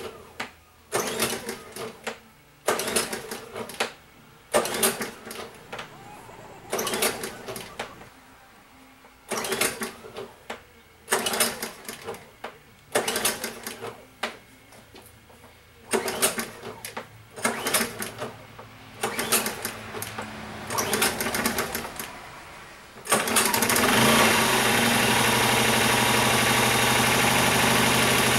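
Ryobi RYi2200 inverter generator being pull-started: the recoil starter cord is yanked over and over, about fifteen pulls spread over some twenty seconds, each a brief whirring rasp. About 23 seconds in the engine catches and runs steadily.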